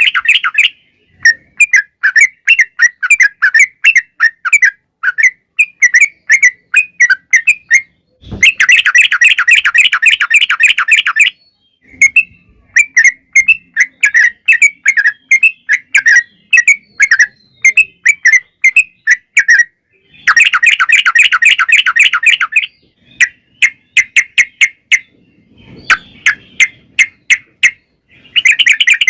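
Yellow-vented bulbul (trucukan) singing: a loud run of bubbly chirps, about three or four a second, broken three times by long, fast rolling trills (the "ropel"). The trills come about 9 seconds in, about 21 seconds in, and again at the very end.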